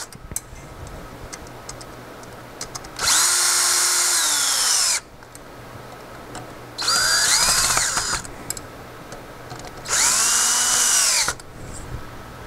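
Cordless drill driving bolts to tighten a ceiling fan box onto its bracket, in three bursts of one to two seconds each. The motor whine winds up at the start of each burst and drops in pitch as it stops.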